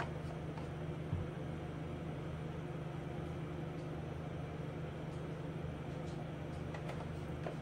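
A steady low hum with an even hiss over it, with a few faint small clicks.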